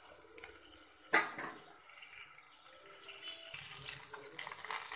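Ginger-garlic paste sizzling in hot oil in a pan, being fried to cook out its raw smell, with a sharp knock about a second in. The sizzle grows louder and fuller past the middle.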